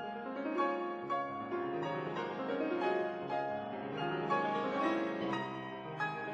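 Background piano music, a melody of separate notes over sustained lower notes.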